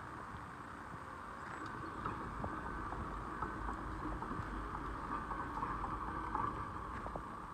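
Demolition machinery working on a structure, a steady mechanical noise with scattered knocks and crunches throughout.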